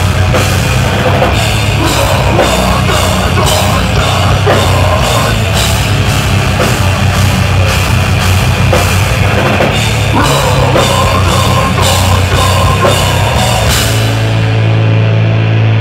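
Deathcore band playing live: heavy electric guitars and a pounding drum kit with steady cymbal hits. About fourteen seconds in, the cymbals stop and a low held chord rings on.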